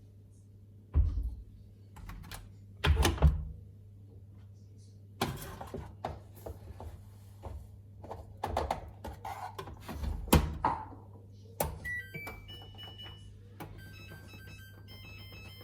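Two heavy thumps and a run of knocks and clicks, then a Samsung washing machine's control panel beeping and playing its electronic start-up tune near the end, all over a low steady hum.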